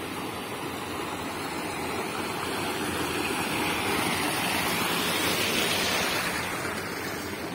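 Water rushing and splashing down a small cascade in a narrow brick-lined garden channel. It grows louder toward the middle and eases off near the end.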